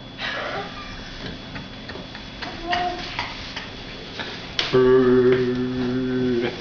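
A small child's funny noises and movement: scattered clicks and rustles, a short squeak about three seconds in, then a loud steady hum held at one pitch for about two seconds near the end.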